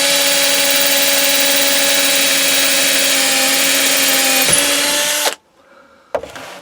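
Power drill running steadily as it bores a hole through the end of a wooden handle. Its pitch dips briefly, then it stops suddenly about five seconds in.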